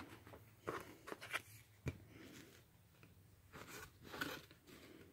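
Cardboard board-game tiles being slid and set down on a quilted fabric surface: faint, scattered scrapes and taps, with one sharper tap about two seconds in.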